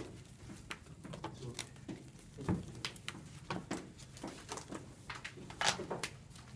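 Scattered soft clicks and taps of trading cards being handled and set down on a playmat, with a couple of sharper taps about two and a half seconds in and near the end.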